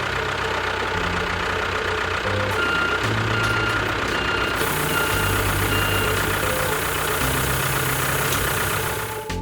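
A vehicle engine running steadily, with a short high tone repeating about twice a second through the middle of the stretch.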